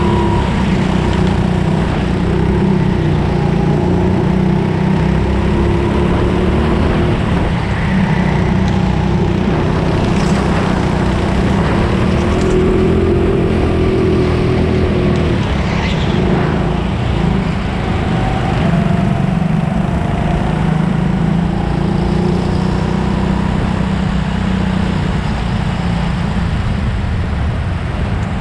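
Racing kart engine running hard from on board, its pitch rising and falling as the throttle is worked through the corners.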